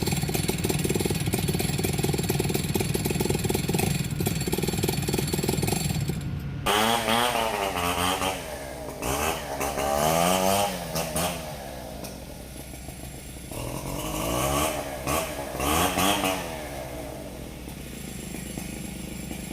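A two-stroke chainsaw runs steadily at high revs for about the first six seconds. It then drops off abruptly, and the throttle is revved up and down several times, with quieter low-rev stretches in between.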